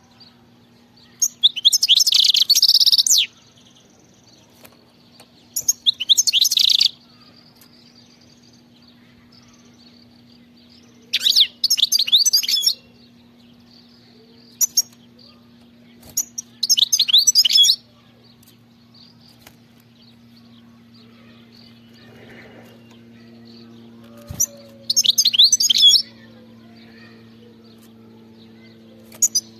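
European goldfinch singing in short phrases of quick, high twittering notes, each one to two seconds long and a few seconds apart, over a faint steady low hum.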